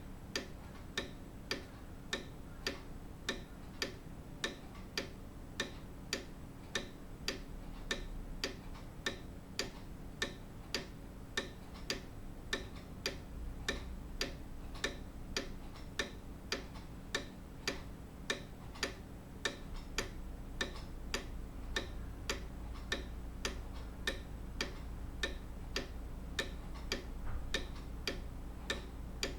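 Grandfather clock ticking in a steady, even tick-tock rhythm of sharp clicks.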